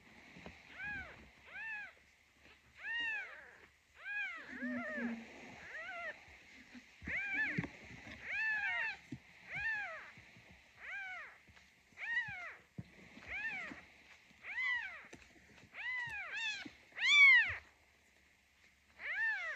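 Newborn kitten mewing over and over, about one short high-pitched cry a second, each rising and falling. The loudest cries come about three-quarters of the way through, followed by a brief pause.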